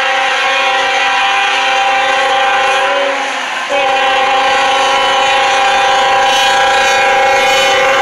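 Nathan K5HL air horn on a Union Pacific Tier 4 C45AH locomotive sounding for a grade crossing: a long blast, a short break about three seconds in, then another long blast. The horn is fouled, so its chord does not sound clean.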